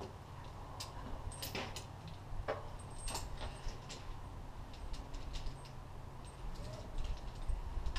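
Climbing hardware being handled: a few separate light clicks and clinks, over a low steady rumble.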